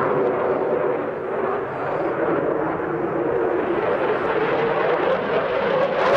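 Jet noise from an RAF Eurofighter Typhoon's twin EJ200 turbofan engines as the fighter flies past in its display, steady and loud, easing slightly about a second in and swelling again near the end.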